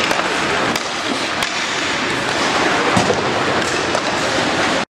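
Ice hockey play in a rink: a steady wash of skates on ice and crowd noise, broken by several sharp clacks of sticks and puck.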